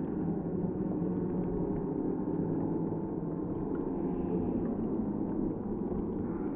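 Crowd of spectators cheering, slowed down by slow-motion playback so that it becomes a steady, deep, low-pitched din.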